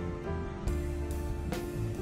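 Background music with plucked notes, a new note starting about every three-quarters of a second.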